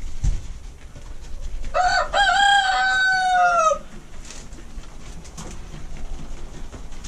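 A rooster crowing once, starting about two seconds in: two short notes, then a long held note that drops in pitch as it ends.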